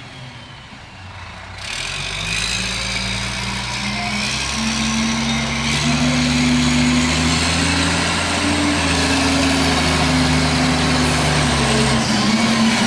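CCC McNeilus rear-loader garbage truck's diesel engine running as the truck drives up the street toward the listener, growing louder over the first several seconds, with its note stepping up in pitch twice before holding steady.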